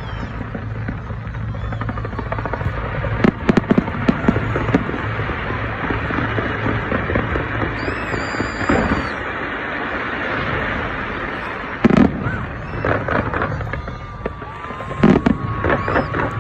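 Fireworks bursting in clusters of sharp bangs: a few seconds in, again about twelve seconds in, and near the end, over a continuous background din.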